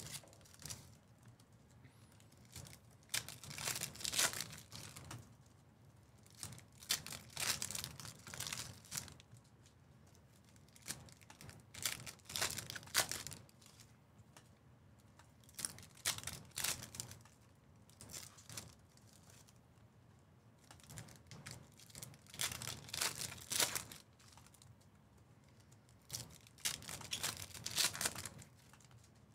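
Foil trading-card packs being torn open one after another, the foil wrappers crinkling and tearing in short bursts every few seconds.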